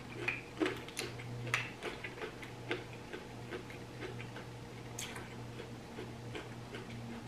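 Close-miked eating of steamed mussels: a run of irregular small clicks of shells against one another and the glass dish as mussels are picked out, louder for the first few seconds, then the softer wet clicks of chewing.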